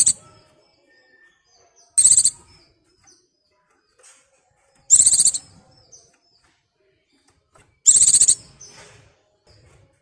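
White-eye (pleci) in breeding condition calling for a mate: three short, loud, harsh calls about three seconds apart, with faint high chirps between them.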